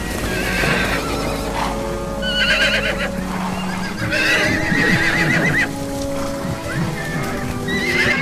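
Young Lipizzaner colts whinnying several times, the longest call wavering about four seconds in: calls of weanlings just separated from their mares. Background music with sustained notes runs underneath, with some hoof clatter.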